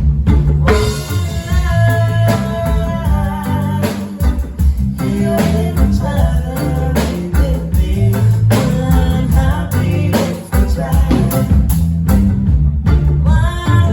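A band playing a song with a singer, guitar and drums.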